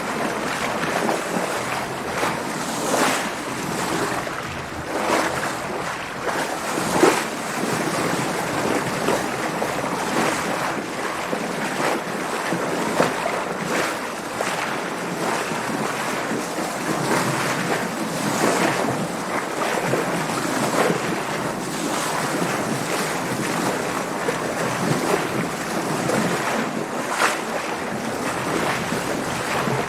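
Sea water splashing and washing against a sailing boat's hull under way, with wind on the microphone: a continuous rushing wash broken by irregular louder splashes every few seconds, the strongest about seven seconds in.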